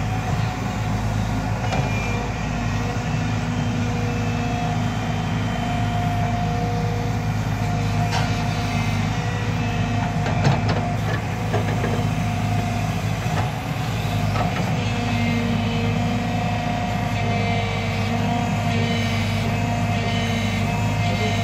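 JCB tracked excavator's diesel engine running steadily under working load as it digs wet, sticky mud, with a few short knocks around the middle.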